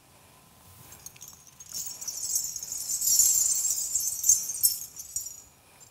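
A long strand of ghungroo, the small metal ankle bells of Kathak dance strung on a cord, jingling as it is lifted and handled. The jingling builds about two seconds in, is loudest in the middle, and dies away near the end.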